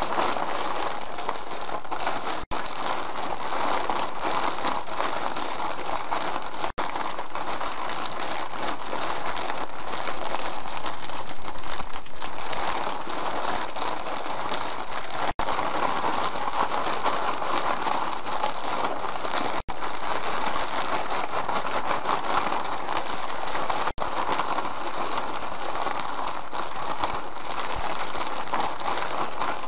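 Plastic zip-top bag crinkling and rustling as braided pretzels are shaken and tumbled inside it to coat them in seasoning. It goes on without a break except for a few very short drops to silence.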